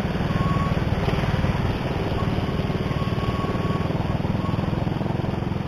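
Motorcycle engine running steadily at low road speed, heard close up from the rider's seat as a rapid low pulsing.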